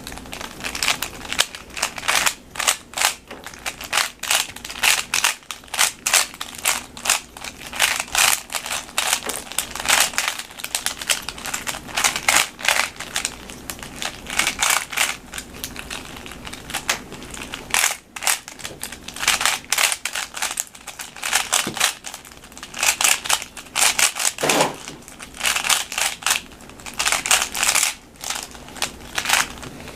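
3x3 plastic speed cube being scrambled by hand: rapid, irregular clicking and clacking of its layers as they are turned, several clicks a second in bursts.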